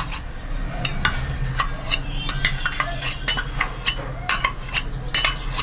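Metal spoon scraping and clinking irregularly against a steel pot as desi ghee is scooped into a heating kadhai, over a steady low hum.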